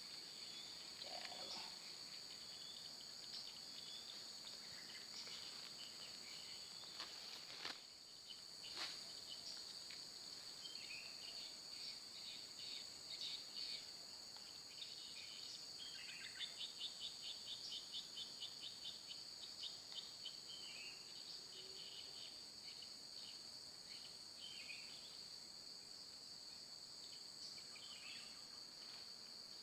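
Crickets or similar insects keeping up a steady high-pitched trill, with scattered bird chirps over it. A rapid run of chirps comes near the middle, and there are two sharp clicks about eight and nine seconds in.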